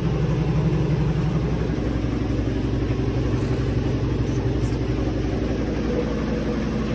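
Washing machine in its spin cycle, the drum spinning at speed with a steady motor hum, slightly louder in the first second or so. The spin shows the washer is draining and running again.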